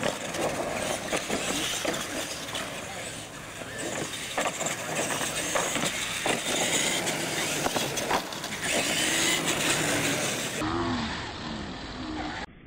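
Radio-controlled monster trucks racing on concrete: a steady high whine and hiss of motors, gears and tyres, broken by many sharp knocks and clatters as the trucks hit and land off the ramps.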